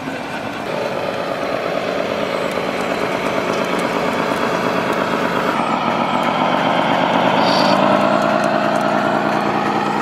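Simulated diesel truck engine from an RC scale truck's sound module, running steadily and growing louder as the truck comes past. The engine note changes about halfway through.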